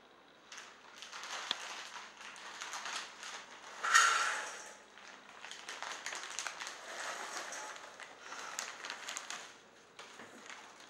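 A crisp snack bag crinkling and rustling as it is handled, with small crackles and taps throughout and the loudest rustle about four seconds in.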